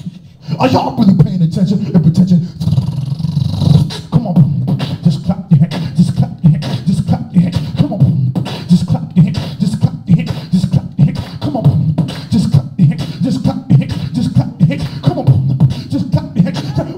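Beatboxing into a handheld microphone: a steady, driving rhythm of vocal kick-drum thumps and sharp snare and hi-hat clicks made with the mouth.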